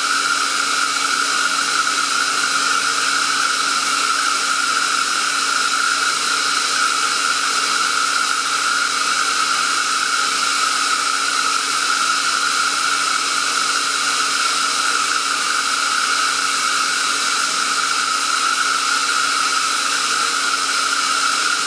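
Kaeser ESD 441 SFC oil-injected rotary screw air compressor running on load, its motor at about 1680 rpm and pumping at about 11.8 bar. The sound is a loud, even rushing noise with a steady whine over it.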